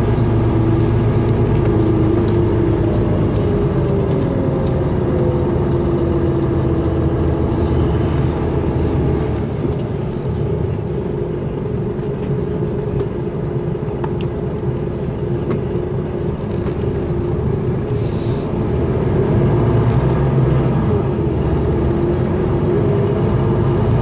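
Mercedes-Benz Actros truck's diesel engine running steadily as heard inside the cab while the truck drives slowly, with a brief hiss about three quarters of the way through.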